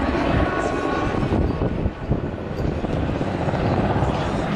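Airbus (Eurocopter) AS 532 Super Puma helicopter in display flight: the main rotor beats steadily over the noise of its twin turboshaft engines. The sound dips briefly about two seconds in.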